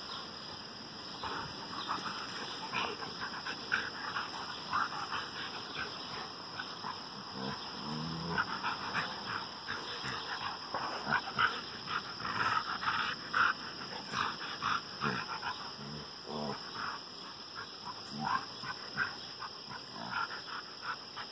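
A dog rolling on its back in the grass, its body scuffing and rustling against the grass and dirt in irregular bursts, with a few short low vocal sounds from the dog in between.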